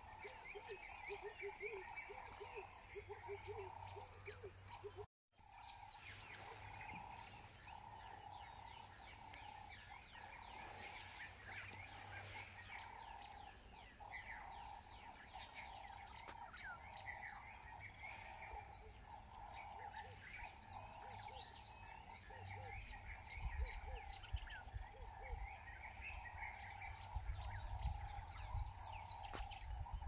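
Bird chorus: many short chirps and whistled calls over a steady droning chorus, with a quick pulsing call repeated through the first five seconds. The sound drops out for a moment about five seconds in, and a low rumble builds over the last several seconds.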